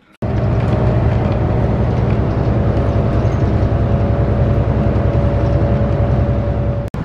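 Steady car-cabin noise while driving: low road and engine rumble with a faint steady hum. It cuts in suddenly just after the start and cuts off just before the end.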